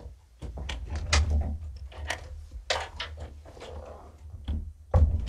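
Kittens playing on the floor: an irregular series of thumps, knocks and light clatters as they run, pounce and knock into toys.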